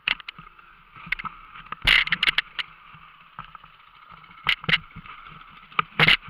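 Dirt bike engine running at low revs, under a string of sharp knocks and rattles as the bike and camera jolt over a rough trail; the loudest knocks come about two seconds in and near the end.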